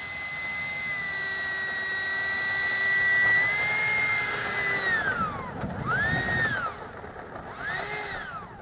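Electric ducted fan of a Habu 32x RC jet, a high whine held steady, then spooling down about five seconds in. Two short throttle blips follow, each rising and falling in pitch.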